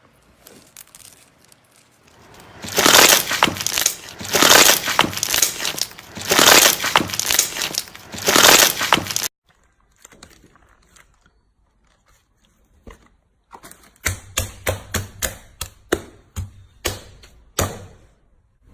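Slime being squeezed and worked by hand, crackling in four long swells, then giving a run of sharp pops about three a second near the end.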